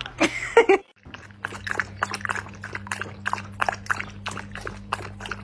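A puppy's short, loud bark, then a dachshund lapping liquid from a china cup, about three laps a second, over a steady low hum.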